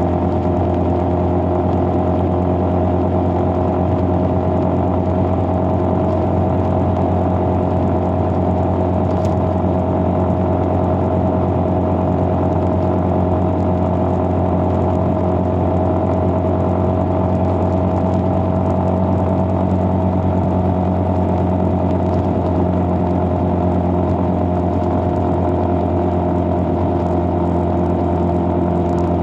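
A motor vehicle driving at a steady speed: an even engine hum with road noise, unchanging throughout.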